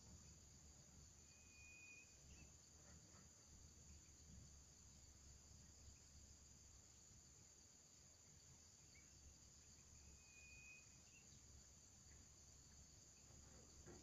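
Faint, steady high-pitched insect chorus, with two short high whistled notes, one about two seconds in and one near ten seconds.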